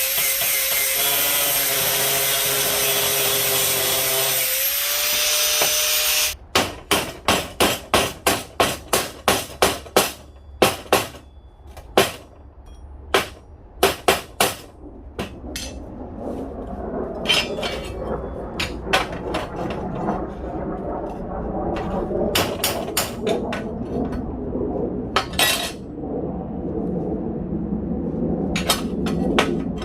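A power tool runs steadily for about six seconds and cuts off, then a hammer strikes steel in a quick run of blows about two a second, followed by scattered blows over a lower, rougher noise.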